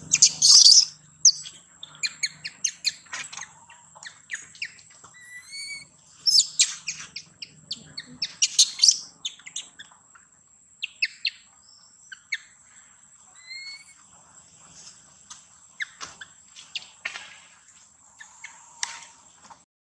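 Baby macaque crying: short, high-pitched rising squeals and louder shrill bursts, repeated, the loudest near the start and again about six to nine seconds in. A steady high insect trill runs underneath.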